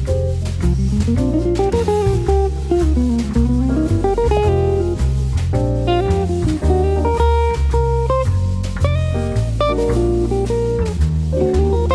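Background music: an instrumental jazzy guitar track with a walking bass line and light drums.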